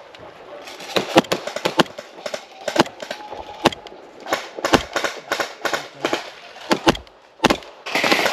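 Airsoft guns firing: irregular single shots and short strings of shots, with a denser run of fire near the end.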